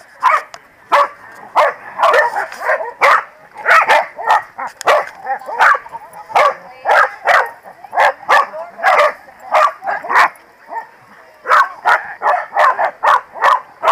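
Corgis barking during rough play: short, sharp barks one after another, often two or three a second, with a brief lull near the end.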